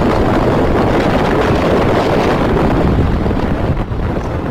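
Wind buffeting a microphone moving at road speed behind a motorcycle: a loud, steady rush, with vehicle noise mixed in.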